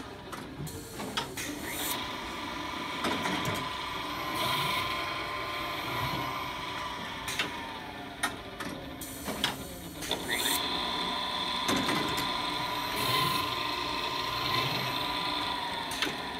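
Automatic pants-cutting table running its cycle: the electric motor of its round-knife fabric cutter runs with a steady whine that drops in pitch a few times, with sharp clicks and clunks of the machine's moving parts now and then.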